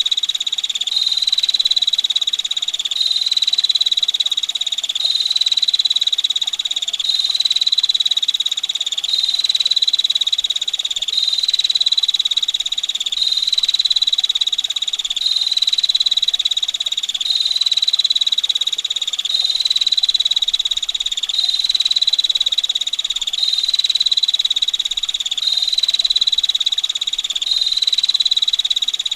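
Female prinia (prenjak betina) giving a continuous rapid, rough, high trill (ngetir). It is looped, so the rattle repeats in near-identical phrases about every two seconds without a break.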